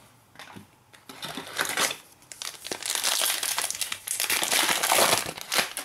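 Foil wrapper of a 2017-18 Panini Prizm basketball card pack being torn open and crinkled by hand. Ragged bursts of crinkling start about a second in, get louder over the second half, and stop just before the end.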